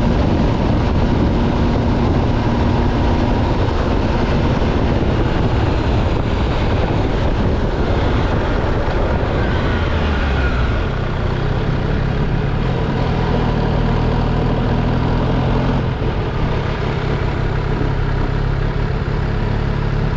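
MV Agusta Stradale 800's three-cylinder engine running on the road, heavy with wind rush over the microphone. Its pitch falls about halfway through and settles into a lower steady note as the bike slows.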